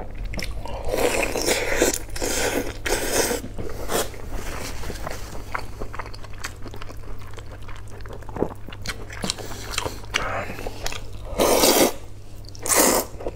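Close-miked eating of luosifen: wet biting and chewing of soup-soaked toppings, then two loud slurps of rice noodles near the end. A steady low hum runs underneath.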